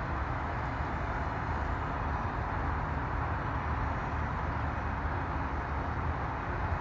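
Steady hum of road traffic and city buses, with a low rumble of wind on the microphone.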